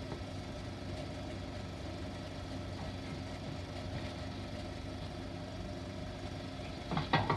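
Steady low hum and hiss of an old 16mm optical film soundtrack with no dialogue. A voice starts near the end.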